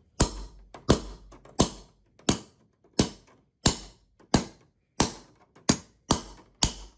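Claw hammer tapping a small metal piece held against the zipper joint of 3D-printed plastic interlocking tiles, driving the joint together. It is a steady run of sharp taps, about one and a half a second.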